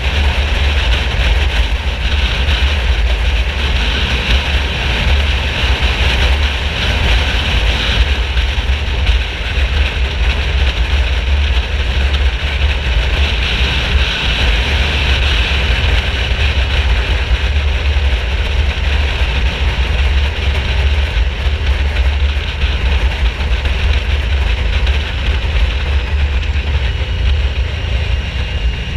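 Yamaha VMAX 1700's V4 engine running at a steady pace while riding, under a heavy low rumble and a steady rushing noise, with no big revs or gear changes.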